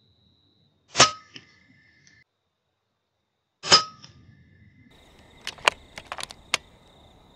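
Two shots from a .22 FX Impact M3 PCP air rifle about three seconds apart, each a sharp report with a brief ring. They are followed by a quick run of five or six sharp clicks.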